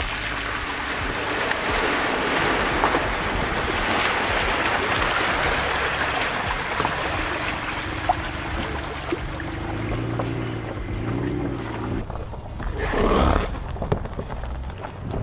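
Water splashing and churning as a 2011 Toyota RAV4 V6 drives through a muddy water crossing, with the engine heard under the splash and rising in pitch about ten seconds in. Near the end the sound changes abruptly to a short, loud burst of noise: the tyres rolling over a rocky gravel trail.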